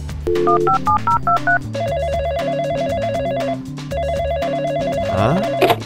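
Telephone sound effect: a quick run of dialing beeps, then two long trilling rings with a short gap between them, over background music.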